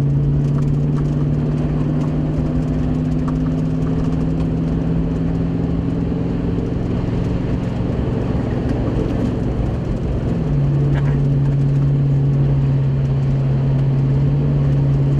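Vehicle engine running while driving, a steady note that creeps slightly higher and then drops to a lower note about ten seconds in.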